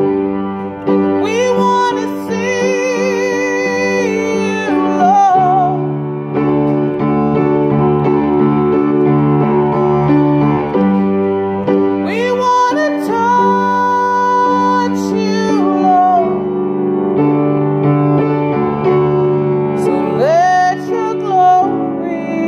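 Piano playing slow, held chords of a worship song while a woman sings over it in three long phrases with wavering, sustained high notes, about a second in, around twelve seconds in, and near the end.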